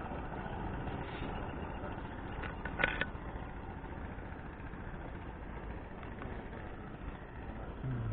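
Boat engine idling steadily, with a short sharp click about three seconds in.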